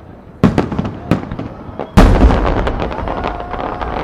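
Aerial firework shells bursting: sharp reports about half a second and one second in, then the loudest boom at two seconds, followed by a long echoing rumble with scattered crackles.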